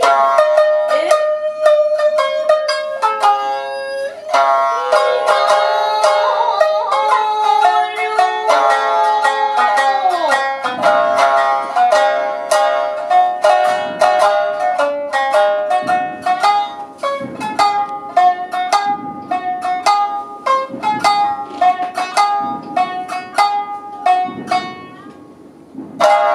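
Shamisen accompaniment for a geisha dance: quick plucked notes, some sliding in pitch, closing with a final struck note near the end that rings away.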